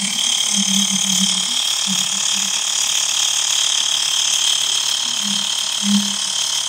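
Xiaomi Mi Portable Electric Air Compressor running as it inflates a tyre toward its set 33 PSI: a steady high whine with a low buzz that comes and goes.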